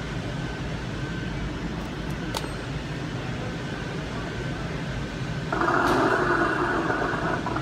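Recorded motorcycle engine sound played through the small speaker of a Motorcycle Riding Reaper Halloween animatronic: a steady low idle rumble that grows louder about five and a half seconds in.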